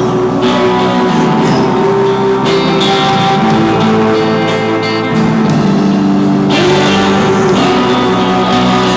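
Live rock band playing with guitars, a loud, steady passage with no singing.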